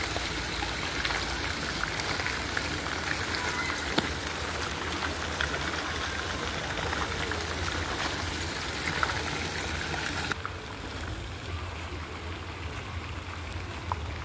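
Fountain water spraying and splashing into a pond: a steady, rain-like hiss of falling water, with a single sharp click about four seconds in. About ten seconds in it cuts to a much quieter outdoor background.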